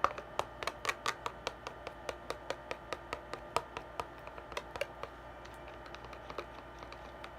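Mixing tool clicking and tapping against a container while stirring slime: quick irregular clicks, several a second, thinning out after about five seconds.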